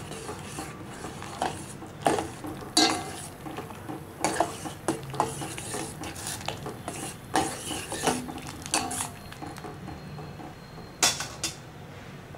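A spoon stirring barley water in a metal pot, scraping and knocking against the pot in irregular strokes, with two sharp clinks about eleven seconds in. The stirring blends freshly added barley-flour paste into the pot.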